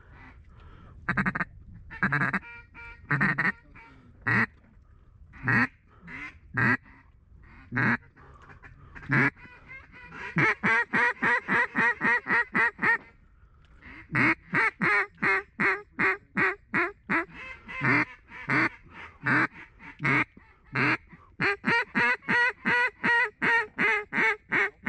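Mallard duck calls blown close by: scattered single quacks, then long, even runs of quacks at about four to five a second, calling to approaching mallards.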